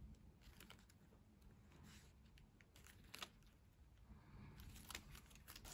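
Near silence with faint scattered clicks and rustles of hands handling a plastic phone case, one slightly louder click about three seconds in.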